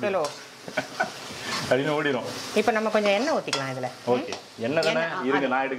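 A metal spatula scraping and stirring through a dry masala of shallots, curry leaves and whole spices sizzling in a kadai, with a few clicks of the spatula on the pan. Voices talking over it are louder than the frying.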